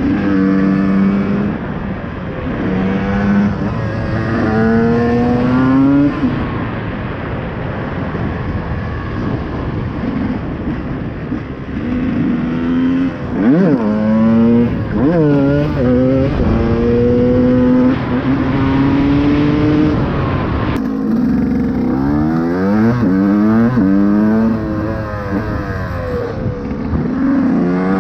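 KTM EXC 125 two-stroke engine with a Scalvini exhaust, revving hard under riding load, its pitch climbing and dropping back again and again.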